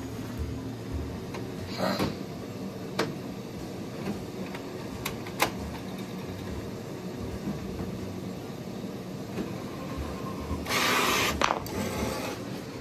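Printer running as it prints a photo: a steady mechanical hum with a few sharp clicks, and a louder rushing burst near the end as the finished sheet comes out.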